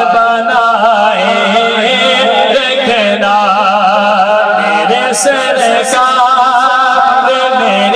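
A man chanting devotional verse in praise of the Prophet Muhammad into a microphone, in long, drawn-out, wavering notes.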